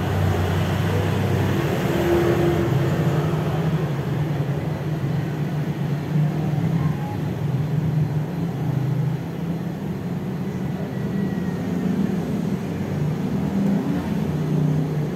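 A motor vehicle engine running with a steady low rumble that shifts slightly in pitch.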